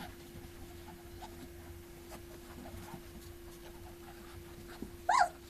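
Three-week-old puppies making faint soft squeaks and scratchy shuffling, then one loud high-pitched yelp about five seconds in.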